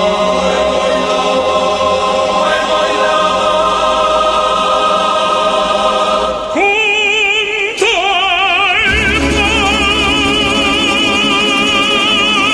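Background music: held, steady chords, then about six and a half seconds in an operatic singing voice with a wide vibrato comes in over them.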